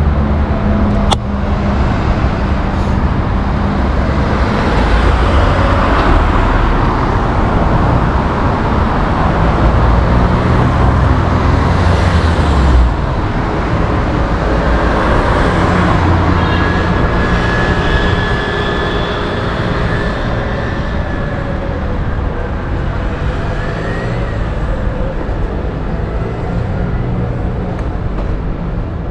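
Busy city-street traffic heard while riding a bicycle: motor vehicles running and passing in a continuous steady mix. A heavy low rumble drops away about thirteen seconds in.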